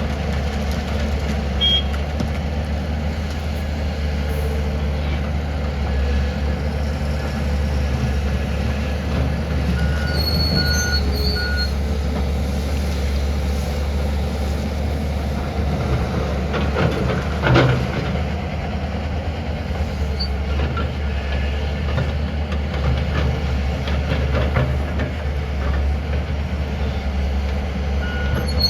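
Heavy diesel engine of a Tata Hitachi 470 excavator running steadily under work. There is a short run of high warning beeps about ten seconds in and again near the end, and a single louder knock a little past halfway.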